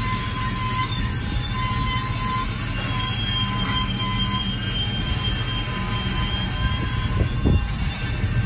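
Railroad tank cars of a freight train rolling slowly past, their wheels squealing in steady high tones against the rails on the curved connection track over a low rumble from the trucks. A brief louder clunk comes about seven seconds in.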